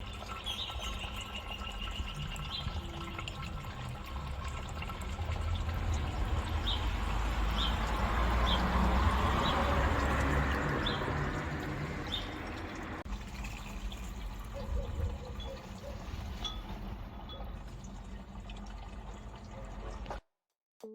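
Water splashing and trickling from a small garden water fountain, a steady rush that swells louder in the middle and drops quieter after a break about two-thirds of the way through.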